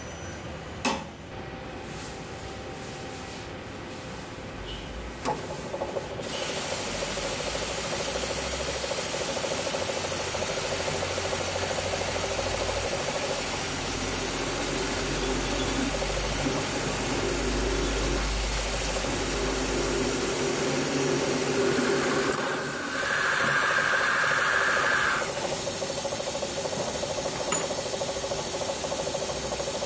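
Drill press running with its cutting tool hand-fed into a round metal workpiece held in a vise, a steady rasping machining noise. Two sharp clicks come before the machine noise starts about six seconds in, and a high steady tone sounds for about three seconds some twenty-two seconds in.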